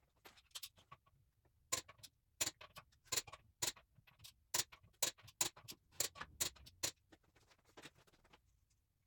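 Socket wrench on the wheel lug nuts: a run of sharp, irregular clicks, about two a second, for some five seconds.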